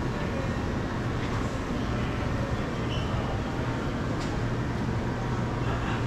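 Steady low hum under a constant wash of background noise, with a few faint light clicks.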